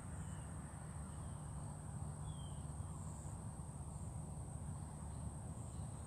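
Steady chorus of insects, crickets or similar, making a continuous high-pitched trill, over a low steady rumble. Two or three faint short bird chirps come in the first half.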